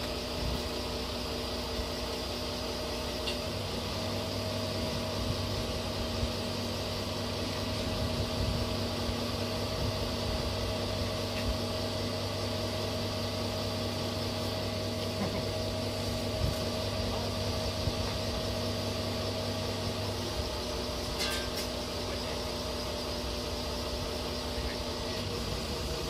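Caterpillar 303 mini excavator's diesel engine idling steadily, with a deeper drone added from about four seconds in until about twenty seconds.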